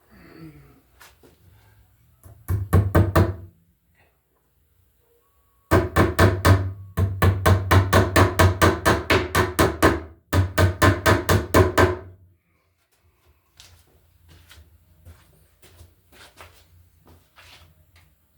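Hammer tapping the nails of plastic cable staples into a wooden running board to fasten NM cable: quick, even blows, several a second, in three runs, the longest about four seconds.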